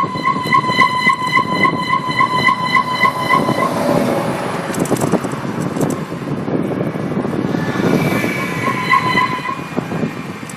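Disc brake making an abnormal squeal: a high-pitched tone that pulses about four times a second over rolling road noise, stops a little over three seconds in, and comes back briefly near the end.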